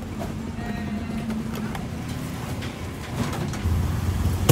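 A motor vehicle engine running steadily nearby, with street traffic noise and a few light clicks; the low rumble grows louder near the end.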